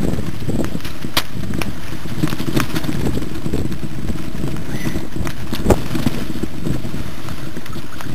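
Mountain bike rolling over rough grassy ground, with steady wind noise on the microphone. Several sharp knocks and rattles come as the bike goes over bumps, the loudest about two-thirds of the way through.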